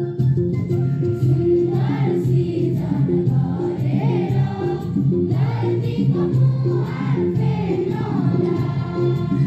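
A choir singing a prayer song over steady instrumental accompaniment with a repeating low bass pattern.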